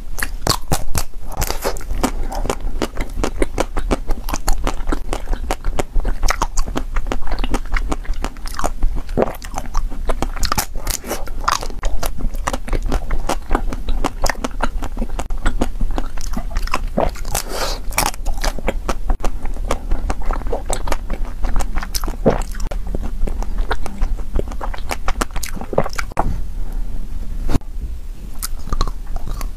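Close-miked biting and chewing of frozen ice cream bars: crunching bites with a dense run of small sharp clicks and crackles.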